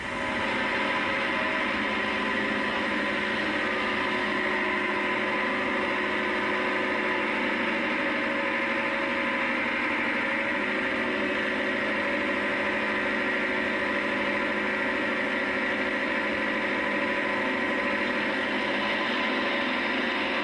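Leyland tractor engine running at a steady speed, with an unchanging hum and no rise or fall in revs.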